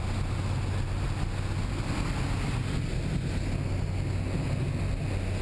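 Single-engine jump plane's engine and propeller running steadily, a constant low drone heard from inside the cabin with wind rushing past the door.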